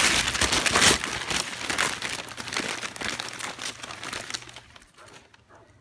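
Patterned gift-wrapping paper being torn and crumpled as a present is unwrapped: a dense run of crinkling and ripping, loudest in the first second, thinning out and dying away near the end.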